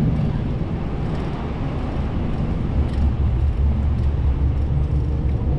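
Road traffic: a motor vehicle's engine running close by over the general street noise. A low rumble grows heavier about three seconds in.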